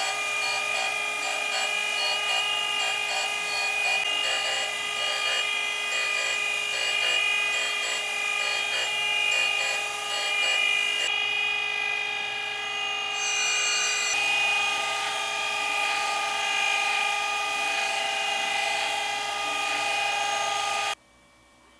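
A surface grinder's abrasive wheel grinding the flat end face of a hardened 4140 steel round bar: a steady high-pitched whine over a grinding hiss. The hiss eases for about two seconds just past the middle, then comes back. The sound stops abruptly about a second before the end.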